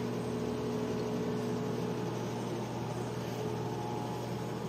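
Steady machine hum with a low buzz and a few held tones; one of the middle tones drops out about two seconds in.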